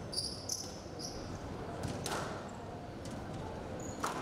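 Squash rally: sharp hits of the ball off racquets and the court walls, the loudest near the end, with short high squeaks of court shoes in the first second.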